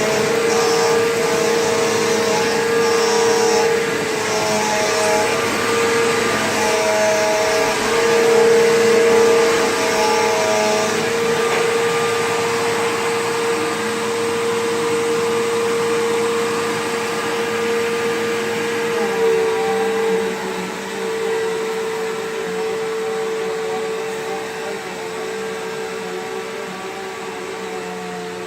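Bissell PowerGlide Platinum bagged upright vacuum running, a steady motor whine with a high airflow hiss. For about the first ten seconds the sound swells and fades roughly once a second, then it shifts a little lower and softer about two-thirds of the way through.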